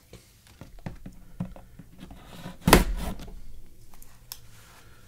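Large cardboard toy box being handled for opening: scattered light taps and scrapes, with one loud thunk a little past halfway.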